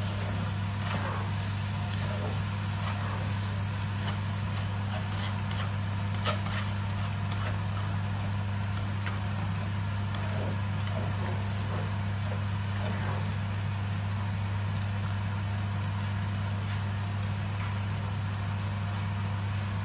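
A steady low hum, with a black slotted spatula stirring and scraping a watery curry in a non-stick frying pan; one sharper knock of the spatula about six seconds in.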